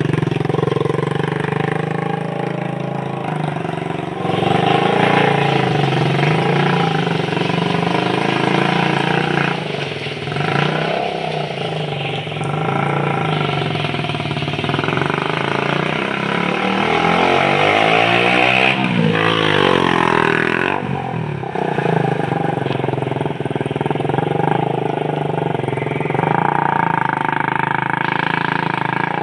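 Motorcycle engine of a home-built mini buggy running while the buggy is driven, its pitch rising and falling as it is revved, with the sharpest swings in pitch about two-thirds of the way through.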